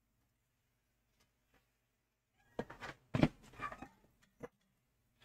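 A quiet room, then about halfway through a short run of knocks and one louder thump, and a last click a moment later: a person moving about and handling gear.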